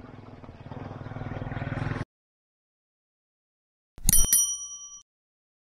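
A rumbling engine-like noise grows louder and cuts off abruptly about two seconds in, followed after a silence by a single bright chime struck about four seconds in, ringing with several clear tones that fade within a second.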